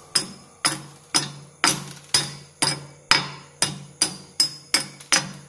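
Chipping hammer striking a fresh arc-weld bead on a vertical steel plate about twice a second, each blow ringing briefly: knocking off the slag that still covers the weld.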